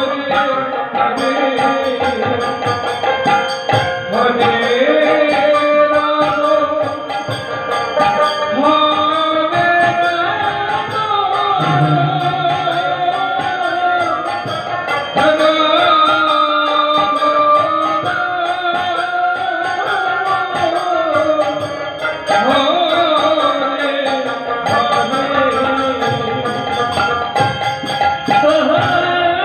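Devotional kirtan: a voice sings a melody that glides from note to note, over hand drums and other instruments.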